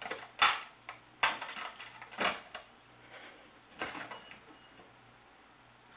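Several sharp clattering knocks at irregular intervals, the loudest about half a second in and again about a second later, as a corded telephone handset is banged down to hang up.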